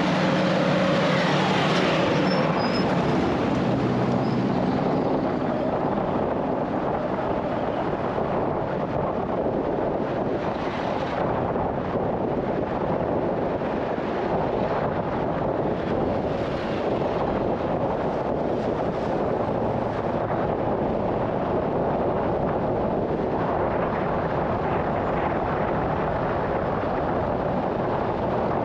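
Road-milling equipment running steadily and loudly: an asphalt milling machine's diesel engine and cutter drum grinding off the pavement, with dump truck engines. An engine hum stands out in the first few seconds.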